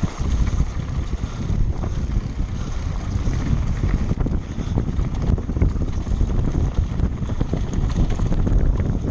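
Wind buffeting the microphone: a continuous low rumble that surges and dips unevenly, with scattered light rattles.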